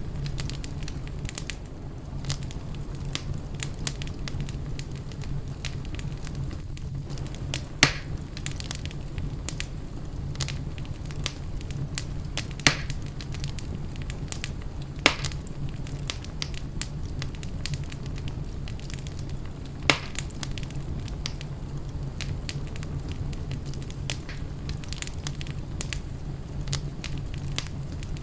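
Wood fire burning in a fireplace: a steady low rumble of flames with continual small crackles and a few sharper pops, the loudest about eight seconds in and again near the middle.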